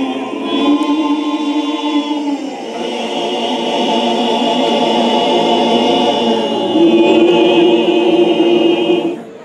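Men's church choir singing in harmony in Kikongo, holding long chords with vibrato. A phrase ends about two seconds in and the next begins, and the singing stops just before the end.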